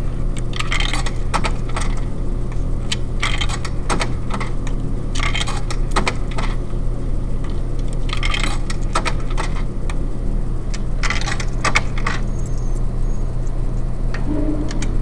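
Coins jingling and clinking together in a hand, in several short bursts a few seconds apart, over a steady low hum.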